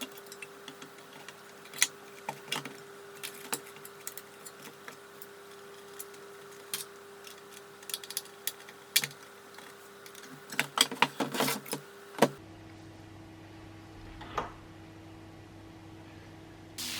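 Sharp clicks of a homemade Morse key, a brass arm striking old relay contacts, tapped in short irregular bursts over a faint steady hum that drops in pitch about twelve seconds in.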